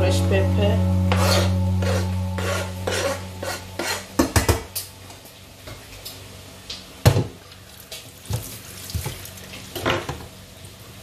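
Background music fading out over the first few seconds. Then a cooking utensil knocks and clinks against a pot and pan on the stove, in scattered separate knocks, the sharpest about seven and ten seconds in.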